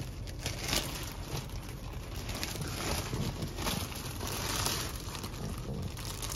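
Plastic gift bag rustling and crinkling as it shifts and is handled, over a steady low rumble.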